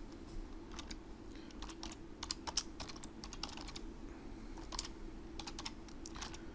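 Typing on a computer keyboard: scattered key clicks in short runs, over a faint steady hum.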